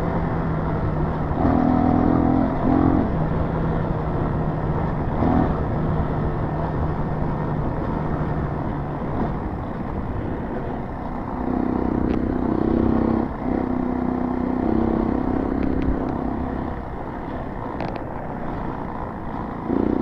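Dual-sport motorcycle engine running under way on a dirt track, its note shifting a little as the throttle changes, with steady wind rush on the microphone.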